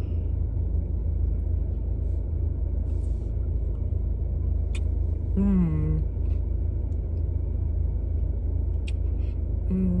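Steady low rumble of a car idling, heard from inside the cabin. About five and a half seconds in and again near the end, a person gives a short falling hum with her mouth closed.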